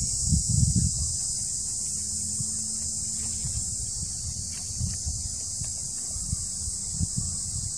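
Insects buzzing steadily in a high, unbroken drone, with a few low thumps and rustles in the first second and scattered faint ticks after.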